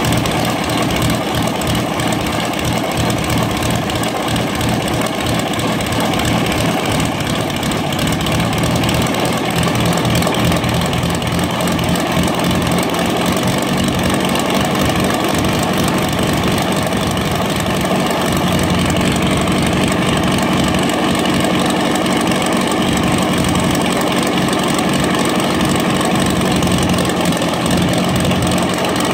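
Merlin 1650 V-12 aircraft engine in an unlimited hydroplane, running at a steady idle on its first firing in the hull, a little louder after about nine seconds.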